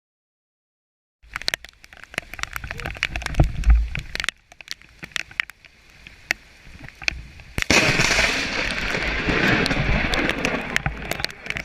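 Thunder from close lightning strikes. Crackling and rumbling begin about a second in and break off suddenly around four seconds in. A sharp crack comes about seven and a half seconds in, followed by loud, sustained rumbling.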